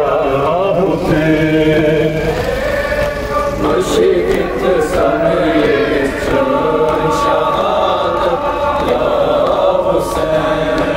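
Many men's voices chanting a Kashmiri nauha, a Shia lament for Imam Hussain, together as a group, holding long sung lines that overlap.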